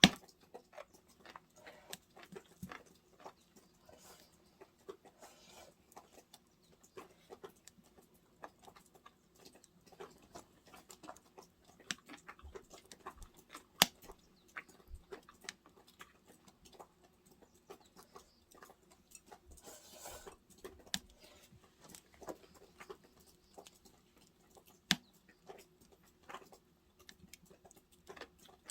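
Wood fire crackling: irregular sharp pops and snaps, a few louder than the rest, over a faint steady hum.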